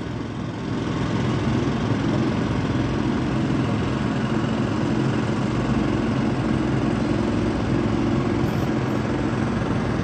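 Heavy construction drilling machine running steadily, a continuous low drone that rises in level about a second in.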